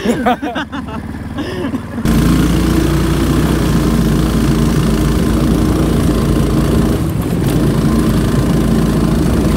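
Brief voices, then about two seconds in an engine comes in abruptly and runs loudly and steadily.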